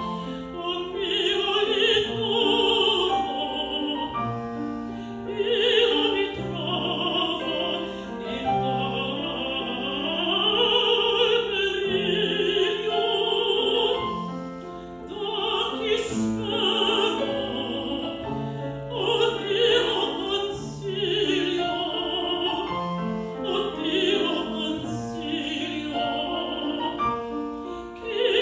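Mezzo-soprano singing an operatic aria with wide vibrato, accompanied by a grand piano, with a brief lull about halfway through.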